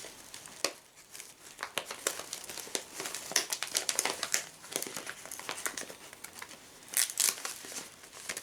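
Plastic pocket-letter sleeve crinkling and rustling as the items in it are handled and slid out, in a run of short crackles, loudest in a cluster about seven seconds in.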